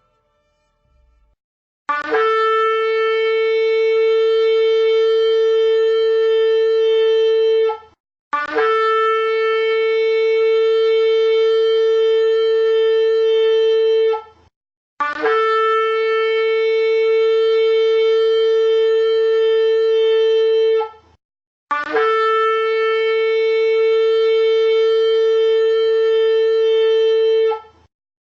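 Shofar blown in four long blasts of about six seconds each. Each blast opens with a short upward scoop in pitch, then holds one steady, bright note until it breaks off.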